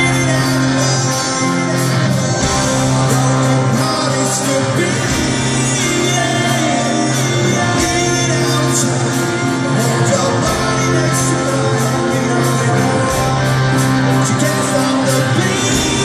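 Rock band playing live: electric guitars, drums and a male lead vocal, amplified through the PA and filling a large concert hall.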